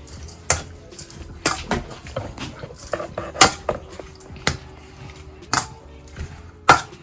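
A utensil clinking and knocking against a bowl while seasoned raw prawns are mixed, in irregular sharp strikes about once a second.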